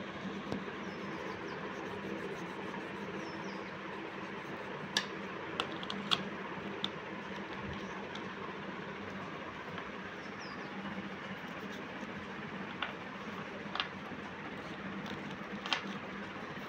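Steady background hiss and hum with a scattering of sharp, light clicks: a cluster about five to seven seconds in and a few more near the end. The clicks are oil pastel sticks and the plastic pastel tray being handled.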